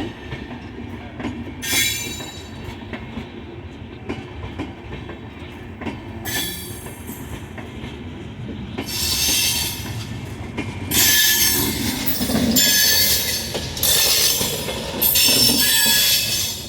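Saraighat Express passenger train's wheels squealing against the rails in repeated shrill bursts over a steady rumble of rolling coaches; the squeals come more often and louder in the second half.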